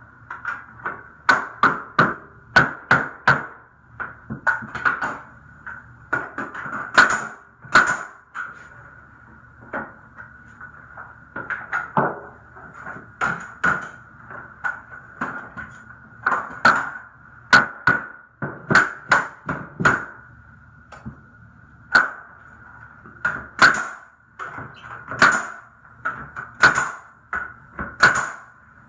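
1x6 boards being nailed into the wall studs: a run of sharp nailing strikes, coming in quick clusters of several a second with short pauses between.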